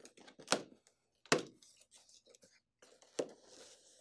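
Packing tape on a cardboard box being broken and the box top pried open: three sharp cracks of tape and cardboard, about half a second, a second and a quarter, and three seconds in, with a soft cardboard rustle after the last.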